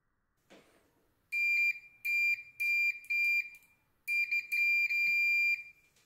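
Digital multimeter's continuity buzzer sounding a high, steady beep in five bursts, the last and longest lasting about a second and a half. The beep signals electrical contact through the throttle micro switch (decel cut-off switch) being tested.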